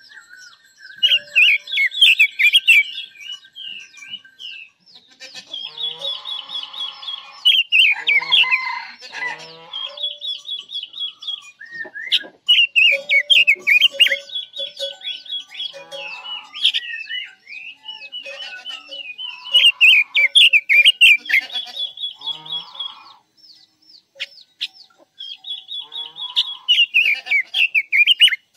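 A caged decoy songbird (Quế Lâm bird) singing in repeated bouts of quick, high, warbling phrases a few seconds long, with short pauses between and some lower calls mixed in. This is the song used to lure wild birds to the trap.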